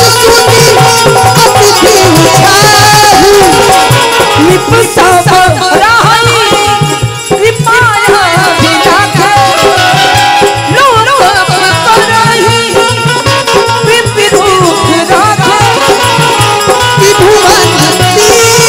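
Devotional Ramayan bhajan music: a dholak keeping a steady beat with jingling hand cymbals, under held harmonium notes and a wavering melody.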